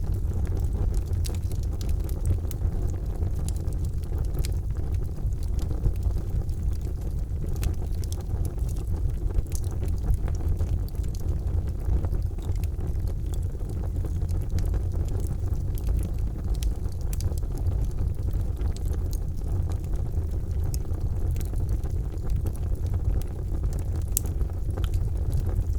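Charcoal fire burning in a fireplace: a steady low rumble with many small, scattered crackles and pops.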